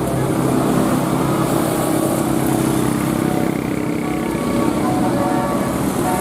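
Road traffic: vehicle engines running as traffic passes, a steady dense noise.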